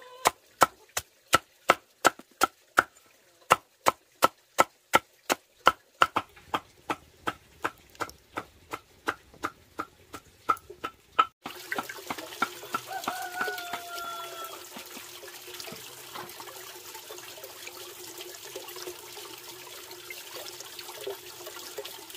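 A machete chopping peeled cassava roots into slices on a wooden board, about three sharp chops a second. Partway through this changes abruptly to water pouring steadily from a bamboo pipe into a large clay jar, with a short bird call soon after the change.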